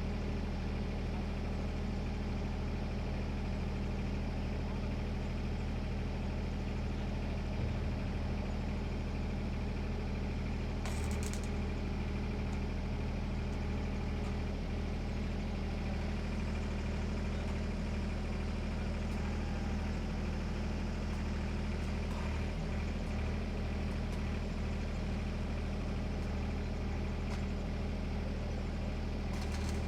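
Heavy construction machinery engine running steadily at a constant idle-like speed, a low even hum with a brief click about eleven seconds in.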